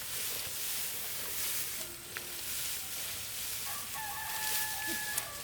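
A rooster crowing once, a single long held call near the end, over a steady outdoor hiss.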